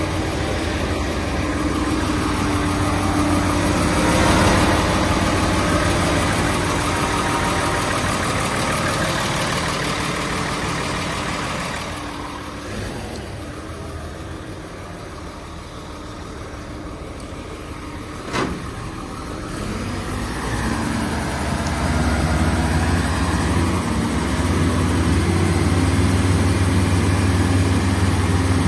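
Mobile truck crane's diesel engine idling steadily. The hum fades for several seconds midway and comes back, with a single sharp click about 18 seconds in.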